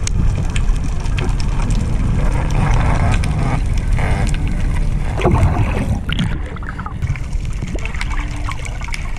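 Underwater water noise picked up through a camera housing: a muffled low rush with gurgling bubbles and scattered clicks from a spearfisherman swimming up.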